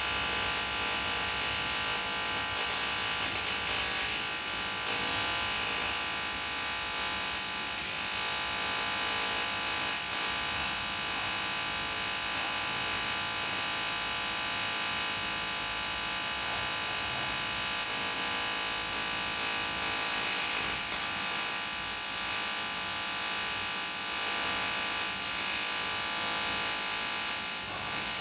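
AC TIG welding arc on an aluminium motorcycle cylinder block: a steady buzz with a strong high hiss.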